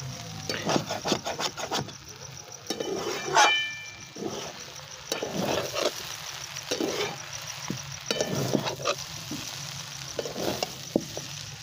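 A spatula scraping and knocking against a metal kadai as noodles are stir-fried and tossed, with a light sizzle from the pan. The strokes come irregularly, the loudest a sharp clank with a brief ring about three and a half seconds in.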